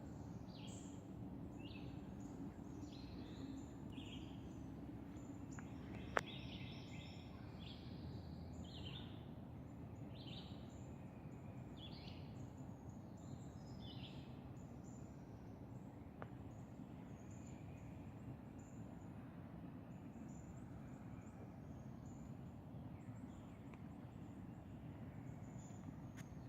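Birds chirping in many short calls over a steady low outdoor rumble, the calls busiest in the first half. One sharp click about six seconds in, and a fainter one later.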